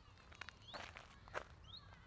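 Faint footsteps on a gravel path, about two a second, while a songbird repeats a short upward-sweeping call about once a second.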